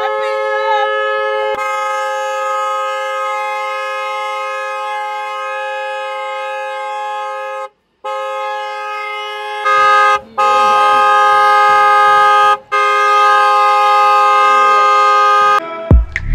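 Several vehicle horns held down together in one long, steady, chord-like blare, sounded to welcome the New Year at midnight. The blare cuts out for a moment near the middle, then comes back louder.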